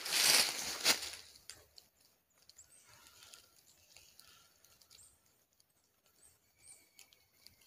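A short burst of rustling, then faint, scattered high chirps and squeaks from a squirrel in hiding.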